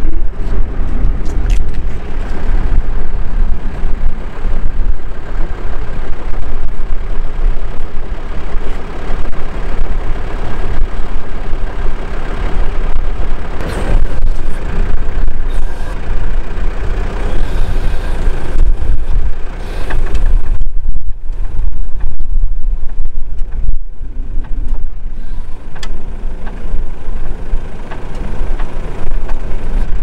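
Recovery truck's engine running steadily under load, a loud continuous low rumble, as its crane boom hauls a stuck motorhome toward the road.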